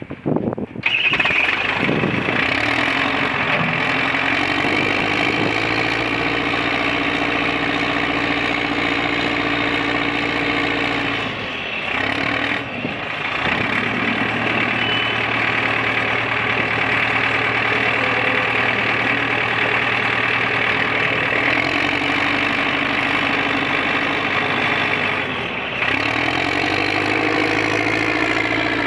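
1965 Caterpillar 950 wheel loader's diesel engine running, its speed shifting several times as the machine is worked, with brief dips in the engine note about 12 seconds in and again near 26 seconds.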